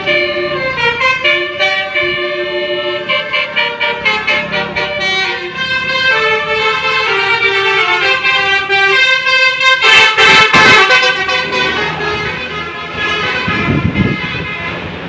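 Bus 'telolet' musical air horns (Basuri type) playing a tune of short stepped notes, then about ten seconds in several horn tones sounding together loudest, with a low rumble near the end.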